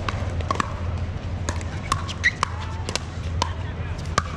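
Irregular sharp pops of pickleball paddles hitting plastic balls, about a dozen overlapping from several courts, some ringing briefly, over a steady low rumble.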